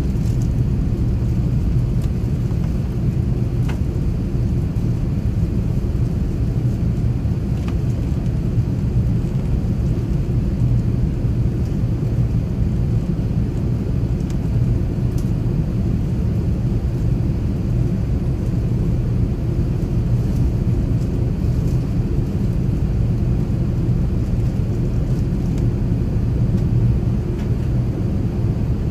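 Airbus A380 cabin noise: a steady, even low rumble of engines and airflow heard from a passenger seat in the cabin.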